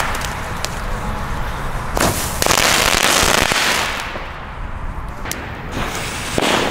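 Nico XXL Crackling Balls, ground crackle fireworks, spraying sparks and going off in dense crackling. A loud, thick burst of crackling comes from about two to four seconds in, then thinner crackling with single sharp cracks.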